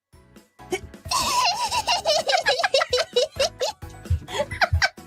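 A woman's high-pitched giggling: a fast run of laughing pulses, starting about a second in and sliding down in pitch, followed near the end by a few short breathy bursts.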